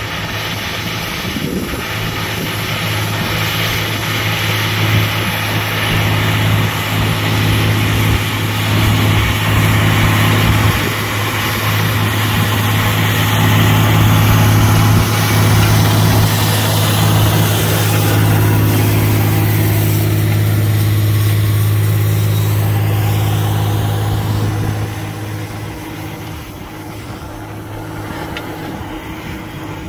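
Large John Deere tractor engine running steadily under load while pulling a seedbed cultivator with rollers through dry soil, the hiss and rattle of the implement working the ground mixed in. It grows louder as the tractor passes close, then drops away about 25 seconds in as it moves off.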